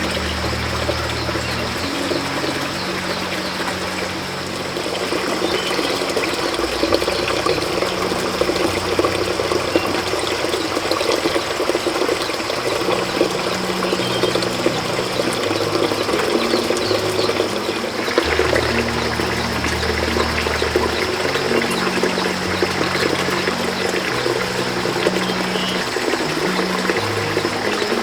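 Water running or pouring steadily, over soft background music with held low notes.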